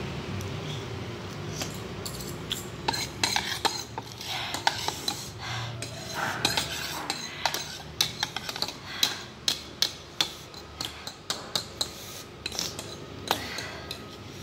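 Metal fork and spoon clinking and scraping against a bowl while stirring and scooping noodles: many quick, uneven clicks.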